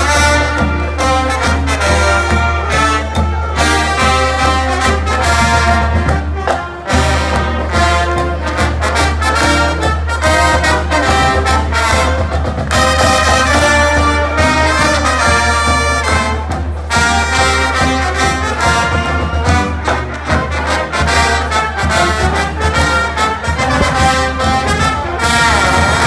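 Brass band music: trumpets and trombones playing a lively tune over a steady deep bass.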